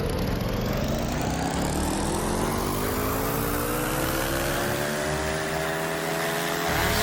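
Pressure washer spraying a 700R4 transmission case, a loud steady hiss of water jet with tones that rise slowly in pitch.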